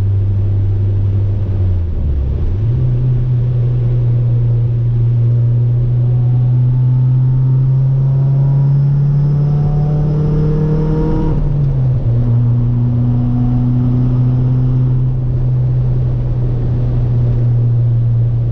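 Four-cylinder car engine and drivetrain under way, a steady low drone. About two seconds in it dips and steps up in pitch, then it climbs slowly under acceleration until a drop about eleven seconds in, typical of a gear change, before settling to a steady cruise. The engine is logging misfire codes on all four cylinders.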